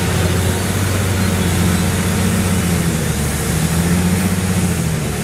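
Diesel engine of a Fendt farm tractor running steadily under load as it pulls a weight sled on a chain in a tractor pull, its pitch holding nearly constant.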